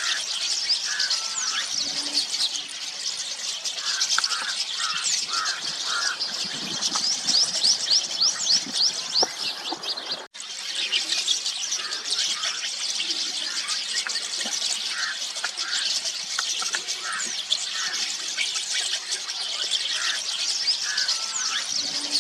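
A flock of rosy starlings chattering: a dense, continuous mix of many high, squeaky, grating calls. The sound cuts out for an instant about ten seconds in.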